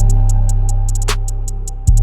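Background electronic music: deep held bass notes under a steady run of hi-hat ticks, with a drum hit about a second in and a new bass note near the end.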